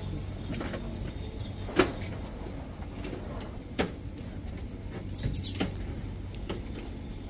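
Supermarket background: a steady low hum with scattered short clicks and knocks, the sharpest about two seconds in and again about four seconds in.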